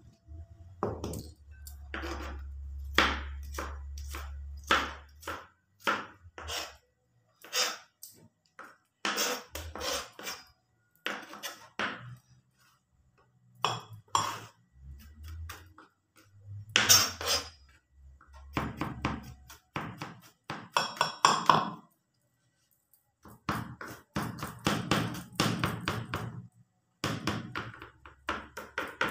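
Kitchen knife chopping peeled garlic cloves on a plastic cutting board: separate knocks of the blade on the board at first, then quick runs of rapid mincing chops in the second half.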